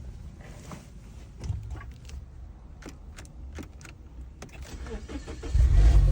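A few light clicks, then about five and a half seconds in the 2012 Mini Cooper's engine starts and keeps running. It starts now that the faulty fuse box has been replaced.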